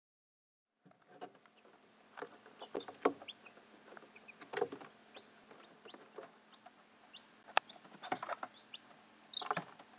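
Young Ameraucana chicks peeping, many short high peeps scattered throughout, starting about a second in, mixed with several sharp knocks and taps.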